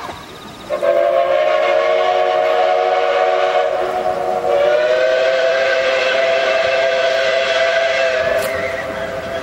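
Steam whistles of a double-headed steam train, two steam locomotives coupled together, sounding one long chord of several tones. It starts about a second in, its mix of tones changes about halfway through, and it fades near the end.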